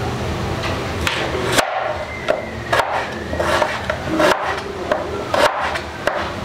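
Kitchen knife slicing red onion on a plastic cutting board: the blade knocks on the board at uneven spacing, roughly once a second.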